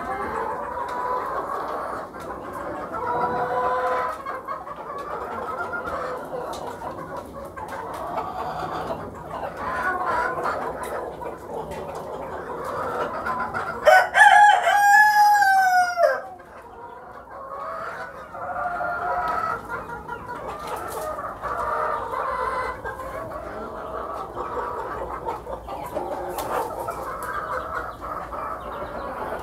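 A flock of hens and roosters clucking and calling without a break. About halfway through, one rooster crows loudly for about two seconds, the crow dropping in pitch at the end.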